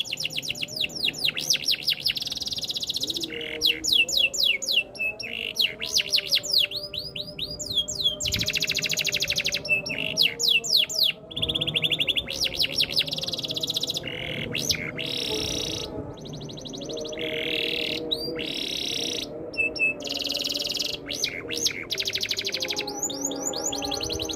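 Domestic canary singing a continuous song of fast rolling trills and rapid repeated chirps, phrase after phrase with short breaks.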